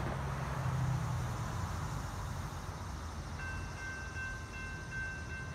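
A low rumble of a road vehicle passing near the start. About three and a half seconds in, a steady, slightly pulsing high ringing tone starts: a railroad warning signal for an approaching train.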